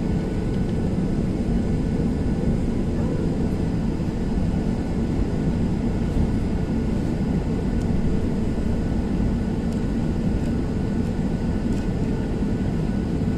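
Boeing 737-800 airliner heard from inside the cabin while taxiing, its CFM56-7B turbofan engines running steadily at low power. The sound is a steady low rumble with faint, even high whines above it.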